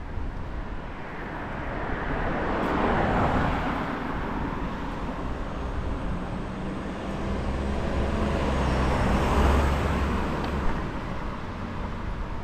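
Cars driving past on the road, with tyre and engine noise swelling and fading twice: once about three seconds in, and again later with a low engine hum.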